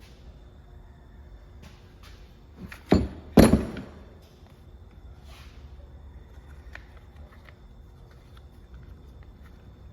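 Two sharp knocks about half a second apart, around three seconds in, the second louder with a brief metallic ring. They sound like a tool or part striking during work on an Echo string trimmer's clutch. Faint clicks of handling come before and after.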